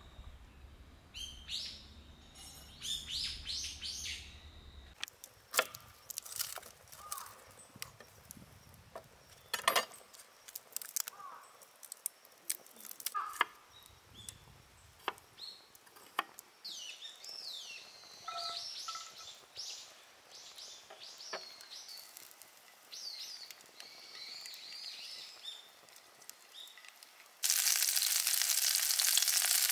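Birds chirping and calling, with scattered sharp clicks and knocks throughout. About 27 seconds in, a loud steady sizzle starts as food goes into hot oil in a pan.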